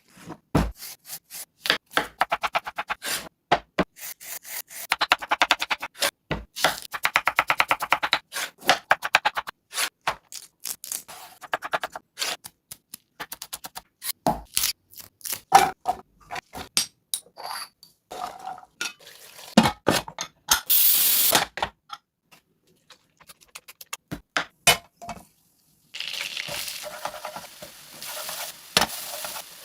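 Metal spatula clanking and scraping on a large flat iron griddle in fast runs of strikes as pav bhaji vegetables are mashed and mixed, with sizzling in the last few seconds.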